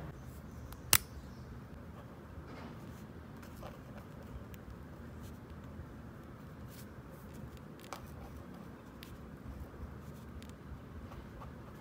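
Fine-tipped pen working on lined paper: faint scratching and light ticks as small details are coloured in. One sharp click about a second in.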